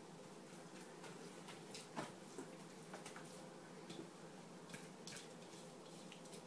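Faint, scattered squishing and light scraping of raw ground-turkey meatloaf mixture being worked into a baking pan, with a slightly louder tap about two seconds in.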